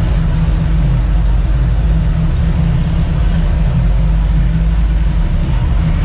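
Pickup truck engines rumbling at low speed as a line of lifted trucks rolls slowly past: a steady, deep rumble with no sharp revs.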